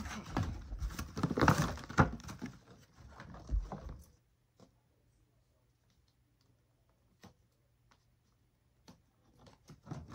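Barbie doll box packaging being handled and cut free, crinkling with many sharp clicks. After about four seconds it drops to a few faint clicks, and light rustling returns near the end.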